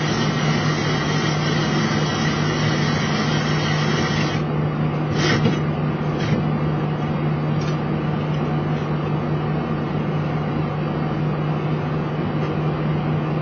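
Steady hum inside a Boeing 737 cockpit as the airliner taxis, from its running engines and cabin air and fan systems. A high hiss drops away about four seconds in, followed by a few clicks.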